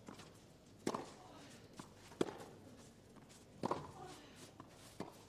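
Tennis racket strikes on the ball in a baseline rally, three sharp hits about a second and a half apart, with fainter knocks between.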